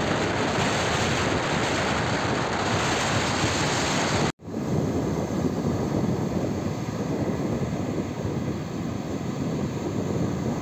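Strong sea wind rushing over the microphone with waves breaking on the shore, a steady rush that drops out for an instant about four seconds in and then carries on slightly duller.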